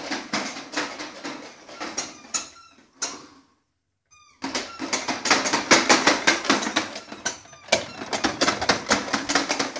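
Plastic toddler push-along walker car rolling and rattling over a wooden floor, its wheels and the beads on its handle clattering in quick, irregular clicks. The clatter stops for about a second partway through, then starts again louder.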